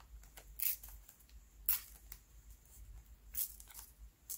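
Black origami paper being torn by hand in a few short rips, about a second apart.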